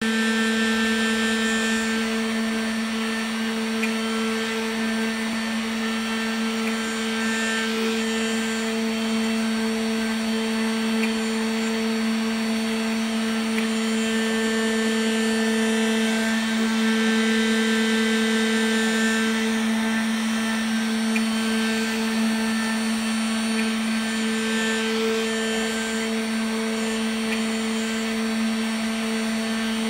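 Homemade CNC engraver running steadily, its spindle carving a block of carving wax with a small engraving bit: a constant motor hum with a higher whine over a steady cutting hiss.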